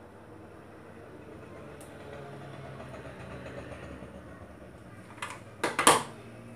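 Hands working a hot glue gun and a handmade garlic-bulb ornament over a faint steady hum, with a short cluster of sharp knocks about five to six seconds in.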